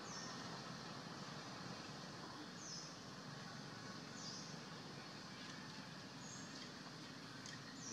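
Outdoor forest ambience: a steady background hiss, with a bird repeating a short, high call that steps down in pitch, about five times.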